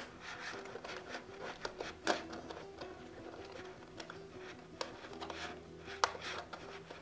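Flexible sheet pieces of a puzzle lamp rustling and clicking as they are bent and their last hooks pulled together, with two sharper clicks about two seconds and six seconds in. Soft background music plays underneath.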